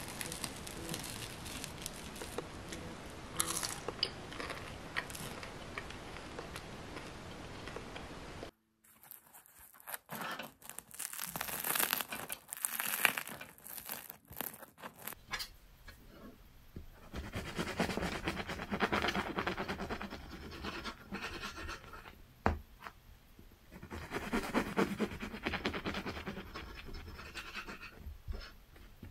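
The crisp crust of a bagel-style pan loaf crackling as hands squeeze it and then tear a loaf apart. In the second half, a knife saws through the crusty loaf in two long scratchy stretches.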